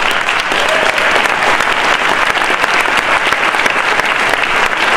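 Audience applauding, a loud, dense, steady clapping.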